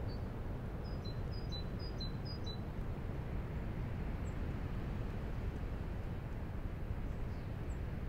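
Strong wind rushing through the bare branches of a leafless birch tree, a steady low rush. About a second in, a small bird gives a quick run of five or so high chirps lasting about a second and a half.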